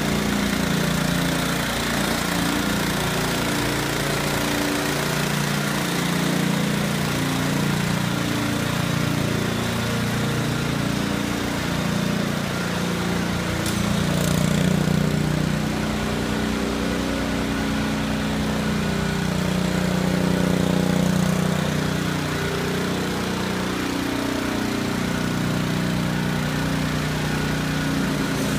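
Small engine on a walk-behind ice-painter sprayer cart running steadily.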